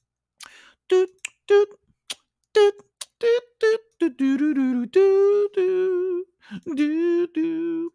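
A man humming a short wordless tune into a close microphone: a run of short separate notes, then longer held notes in the second half.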